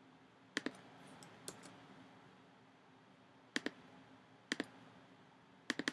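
Computer mouse clicking: five short clicks, most in quick press-and-release pairs, one to two seconds apart.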